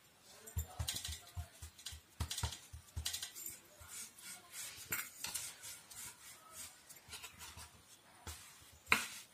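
Wooden rolling pin rolling out dough on a floured wooden chopping board: irregular light knocks and rubbing as the pin runs back and forth, with a sharper knock near the end.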